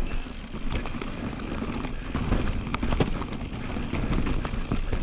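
Norco Range VLT electric mountain bike clattering down over snow-covered rocks: irregular knocks and rattles from the bike, with tyre noise over a steady low rumble.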